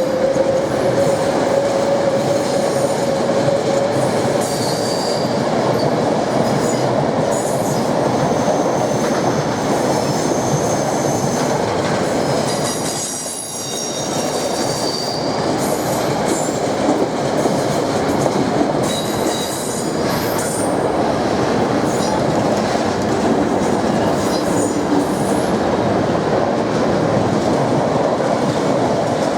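A train running on the rails: a steady rumble of wheels on track, with brief high-pitched wheel squeals now and then and a short dip in level about 13 seconds in.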